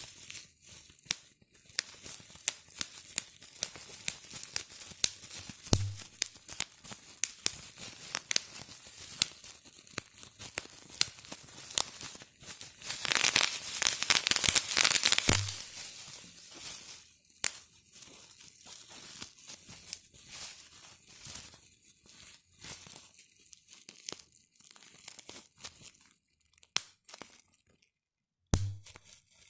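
Plastic bubble wrap being squeezed by hand: irregular sharp pops of single bubbles, with the plastic sheet crinkling. About halfway through there is a stretch of dense crinkling and rapid popping, and there are a few dull thumps.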